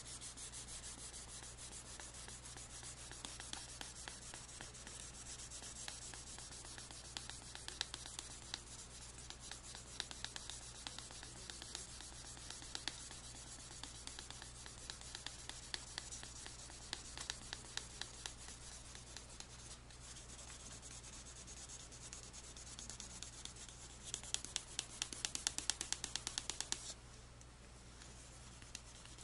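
Sandpaper rubbed by hand over a carved Japanese red oak (akagashi) shift knob: fast, dense scratching strokes while the wood is sanded smooth. The strokes grow more vigorous for a few seconds near the end, then stop.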